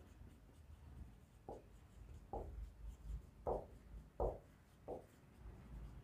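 Marker pen writing on a whiteboard: a quiet series of short strokes, about five or six over a few seconds.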